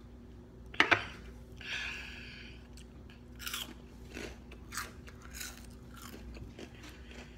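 A boy chewing a mouthful of crunchy hot Cheetos, with repeated short crunches, and two sharp knocks about a second in.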